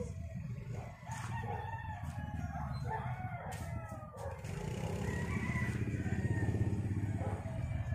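A rooster crowing, with drawn-out calls that rise and fall, over a steady low rumble.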